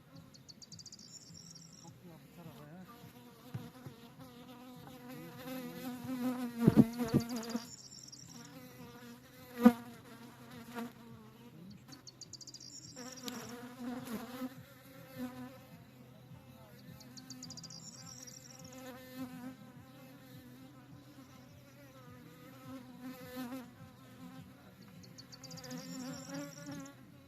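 Honeybees buzzing around the hives, a wavering, many-layered hum that swells and fades as bees fly close. A few loud bumps come about seven seconds in, and a single sharp knock, the loudest sound, comes about ten seconds in.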